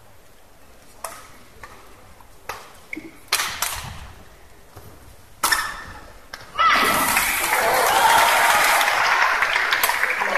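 Badminton rally: a string of sharp racket strikes on the shuttlecock, irregularly spaced. About two-thirds of the way through, the arena crowd breaks into loud cheering and applause as the point ends.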